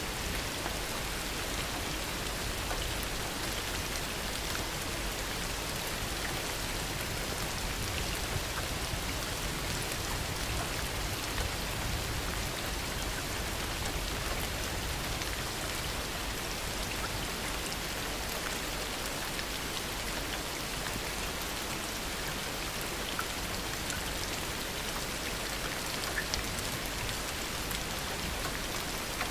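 Heavy rain falling steadily, an even wash of drops with a few louder single drops ticking now and then.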